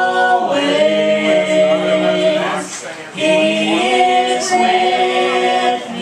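Mixed group of men and women singing a gospel song in close harmony. They sing two long phrases of held notes, with a short break for breath about three seconds in.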